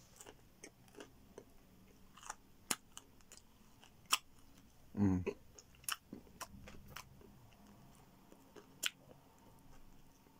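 A person chewing a mouthful of pepperoni pizza, with sharp wet clicks of the mouth scattered throughout and a short low throaty sound about halfway through.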